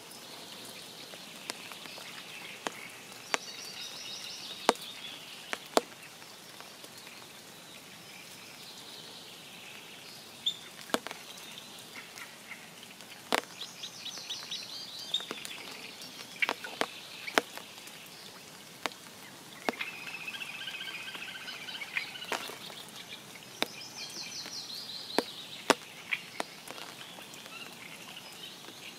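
Spring rain over a forest pond: scattered, irregular raindrop ticks close by, over a soft steady hiss. Songbirds sing several short phrases of quick, high repeated notes.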